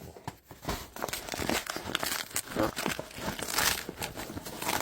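Packaging crinkling and rustling irregularly as it is handled and pulled apart.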